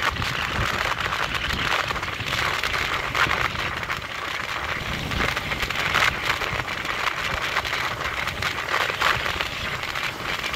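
Wind rushing and crackling over a helmet-mounted camera microphone on a moving motorcycle, with a low rumble of engine and road underneath.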